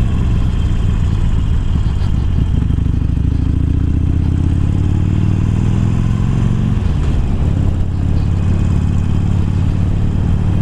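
Harley-Davidson Sportster Iron V-twin with a 1200 upgrade kit and Screamin' Eagle slip-on exhausts pulling away, its revs rising for a few seconds, then dropping at a gear change about seven seconds in and running steadily at the lower pitch.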